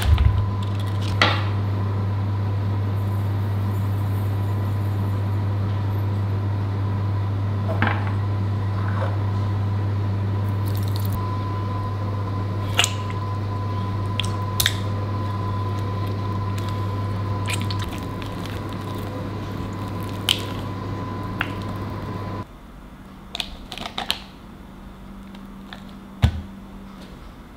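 A foil wrapper crinkling briefly at first, then soft cream cheese squishing as it is stirred with a silicone spatula in a glass bowl, with a few sharp clicks of the spatula against the glass. Under it runs a steady low hum that cuts off abruptly about 22 seconds in, leaving quieter sounds of the filling being scooped into a plastic piping bag.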